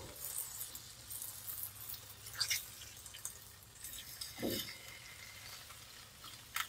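Northern snakehead fillets sizzling faintly in a hot cast iron skillet, with a few short taps and scrapes of a spatula as the fillets are flipped.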